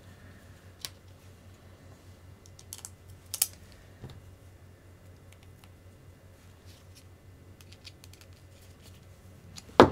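Scattered light clicks and taps of small plastic RC kit parts and screws being handled, with a sharper knock near the end.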